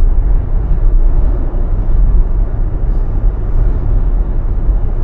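Steady low road rumble and tyre noise inside a Tesla electric car's cabin while cruising at about 45–50 mph, with no engine sound.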